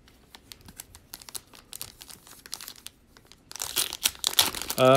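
Plastic wrapper of a Panini Prizm trading-card pack being handled and torn open: light scattered crinkles at first, then louder, denser crinkling and tearing for the last second and a half. A voice starts a steady hum right at the end.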